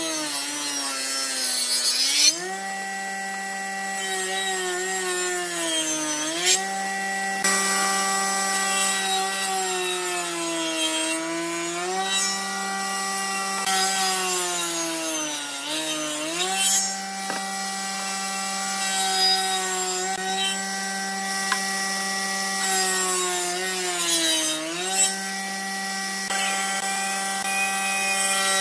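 Table saw running and cutting wood: its steady whine drops in pitch each time a block is pushed through the blade and rises back as the cut ends, about five times.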